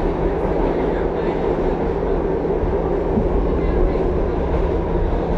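Inside a moving R62A subway car: the steady rumble of wheels on rail and the car's running gear, with a low hum underneath.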